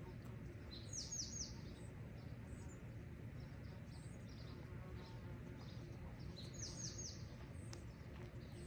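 A small songbird calling: twice, a quick run of three or four high notes, each falling in pitch, about a second in and again near seven seconds, with fainter high chirps between. Under it runs a steady low outdoor rumble.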